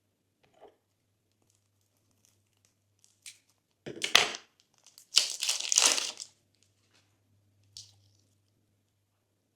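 Slime being handled and mixed, giving crackly, sticky squishes in two bursts, a short one about four seconds in and a longer one from about five to six seconds in, with a few faint clicks around them.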